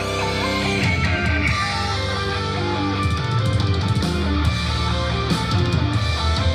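Rock music with guitars, playing steadily.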